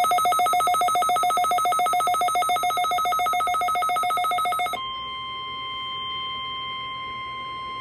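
Emergency alert tones. A rapidly pulsing electronic alarm sounds for almost five seconds, then gives way to a steady single-pitch warning tone, the NOAA Weather Radio warning alarm tone that comes before a new warning message.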